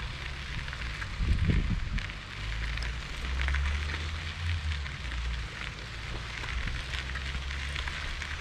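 Wind buffeting the microphone during a ride, a low uneven rumble with scattered crackling over it.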